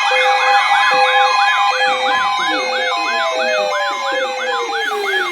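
Electronic siren sounds layered together: a fast yelp rising and falling about three times a second over steady tones and short beeps repeating about every half second. About halfway through, a long tone slides slowly down in pitch.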